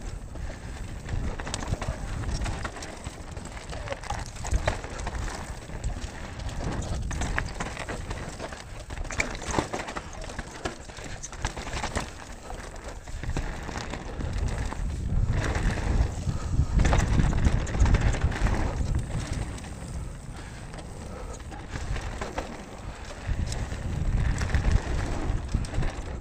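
Mountain bike riding down a dry dirt trail: tyres rolling over the ground and the bike rattling over bumps, with wind buffeting the microphone, heaviest a little past halfway and again near the end.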